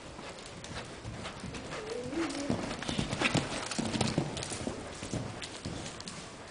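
Hoofbeats of a show-jumping horse cantering on the arena's sand footing, a run of dull rhythmic thuds that grows louder as the horse passes close by about halfway through, then fades.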